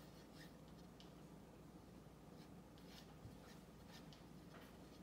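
Faint, irregular swishes of a hand rubbing white lotion across a wooden board.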